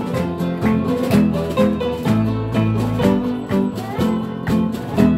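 Acoustic guitar playing an instrumental passage with no voice: chords strummed in a steady rhythm over a ringing bass line.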